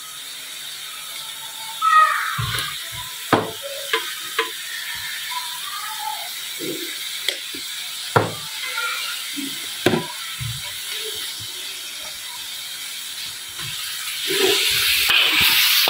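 Scattered clinks and knocks of a metal ladle and seasoning shaker against a steel wok of frying meat. Near the end comes a louder, hissing scrape as the meat is stirred and turned in the wok.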